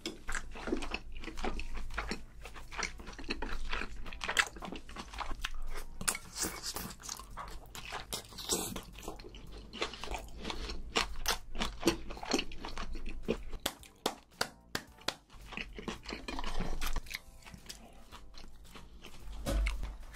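Close-miked chewing of food, with many quick crunchy bites and wet mouth sounds.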